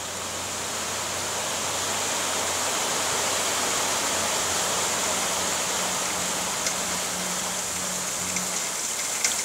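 River pebbles pouring out of a tipped dump-truck body in a steady rushing slide onto a growing heap, building up over the first couple of seconds, with a low hum underneath and a few stones clicking near the end.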